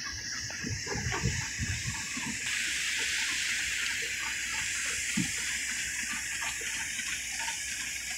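Water gushing from a cutter suction dredger's discharge pipes and splashing into the sea: a steady rushing hiss that grows louder about two and a half seconds in.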